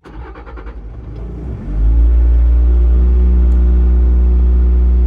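Bobcat T66 skid steer's diesel engine cranking on the starter for a little under two seconds, then catching and settling into a loud, steady run.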